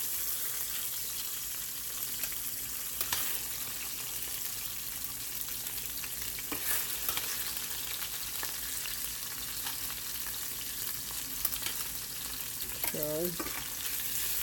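Chicken pieces frying in hot oil in a stainless-steel skillet, a steady sizzle with fine crackling, and a few sharp clicks as metal tongs touch the pan while the pieces are turned and lifted out.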